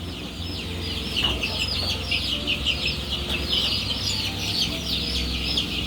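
A crowded flock of four-week-old chickens cheeping continuously, many short, high calls overlapping.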